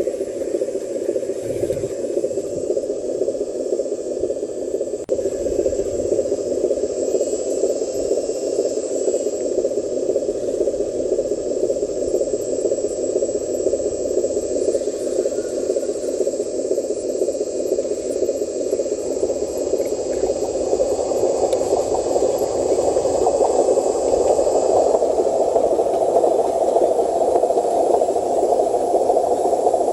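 Radio-controlled trucks' small electric motors and gearboxes running steadily with a whirring, rattling noise, growing a little louder and higher about two-thirds of the way through.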